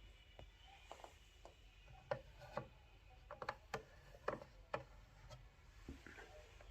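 Irregular sharp clicks and taps from a Braun 4834/AB11 Megamatic alarm clock being handled, a dozen or so, coming fastest in the middle.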